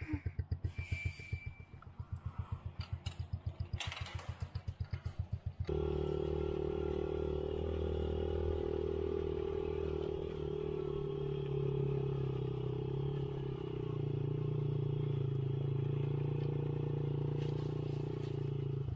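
Small dirt bike engine, first ticking over with an even low pulsing, then opened up about six seconds in and running steadily under throttle as the bike is ridden, the note sagging briefly and picking up again.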